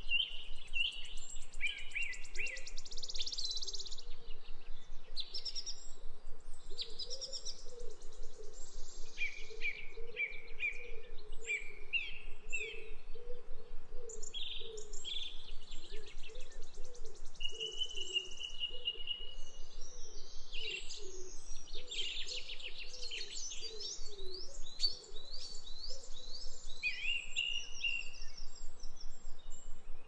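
Several songbirds chirping and singing, with overlapping short calls, quick trills and rapid note series. A fainter low wavering sound runs underneath.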